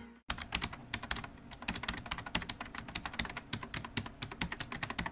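Computer keyboard typing: rapid, irregular key clicks, starting a moment in.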